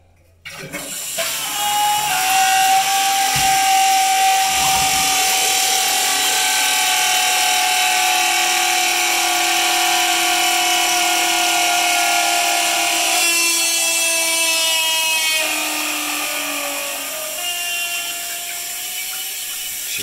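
2002 Eljer Savoy toilet flushing and refilling, starting about half a second in. Rushing water is joined by a loud, high, steady scream from the float-arm ballcock as it fills the tank. The scream shifts pitch a few times in the second half.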